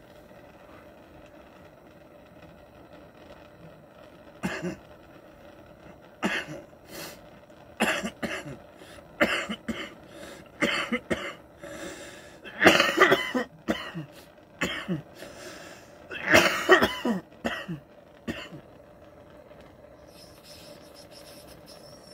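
A man coughing hard in repeated fits after smoking cannabis wax concentrate. The coughs start about four seconds in, come in clusters that are loudest a little past the middle, and stop a few seconds before the end.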